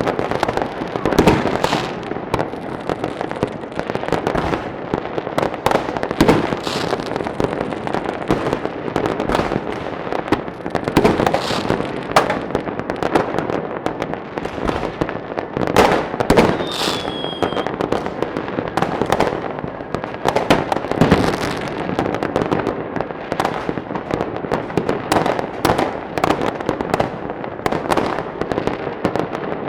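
Fireworks going off continuously, with many overlapping bangs and crackles and frequent louder single bangs. About halfway through comes a short falling whistle.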